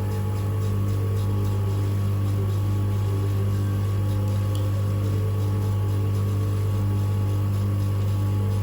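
Manual three-stone lens edging machine running with a steady motor hum and a faint regular pulse.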